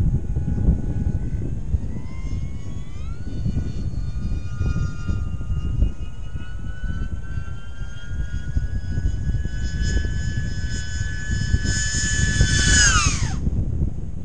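Electric motors and propellers of a twin-motor FPV plane whining in flight, two close pitches side by side: the whine rises as the throttle comes up about two seconds in, holds steady, grows louder, then falls in pitch and fades out abruptly near the end. Heavy wind rumble on the microphone underneath.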